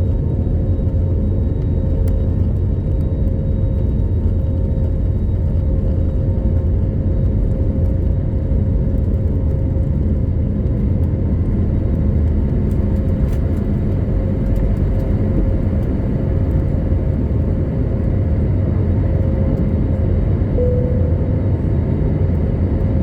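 Steady low rumble of an Airbus A321neo's cabin, with a faint steady hum above it.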